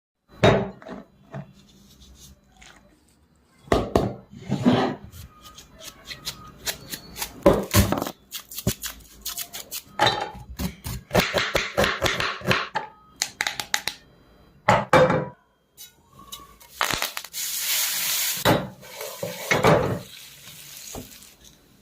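Kitchen utensils and dishes clinking, knocking and scraping, with two longer stretches of hissing noise, one in the middle and one near the end.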